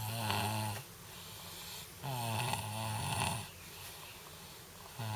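A sleeping boy snoring: a short snore at the start and a longer one about two seconds in, with a third beginning right at the end and quieter breathing between.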